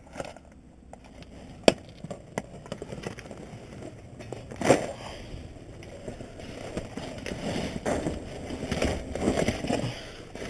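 Rummaging through garbage bags and packaged items: plastic bags and blister packs rustling and crinkling, with a sharp click about two seconds in and a louder crackle near five seconds.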